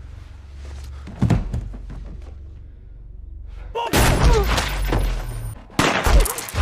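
Dramatic film soundtrack: a low droning score with a couple of thuds. About four seconds in, after a cut, a loud burst of dense action noise with sliding pitched sounds; it breaks off briefly near six seconds and comes back.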